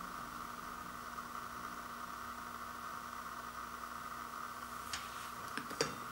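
Steady background hiss with a low hum, and a few small crackles and clicks about five seconds in as a frosted toaster pastry is broken apart and handled by hand.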